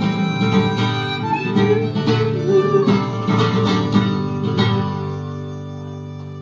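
Instrumental close of a live folk song: guitar and other plucked strings play out the final chords, with a sustained bowed-string tone underneath. The last chord rings and fades away near the end.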